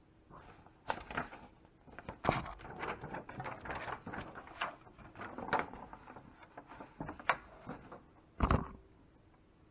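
A paper instruction sheet rustling and crackling as it is unfolded and handled, with a few sharp knocks and a loud thump near the end.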